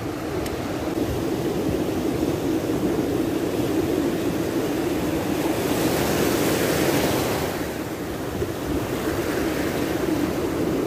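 Ocean surf washing over a shallow reef flat, with a steady rumble of wind on the microphone. About six seconds in, a nearby wave breaks with a rising hiss that fades over a couple of seconds.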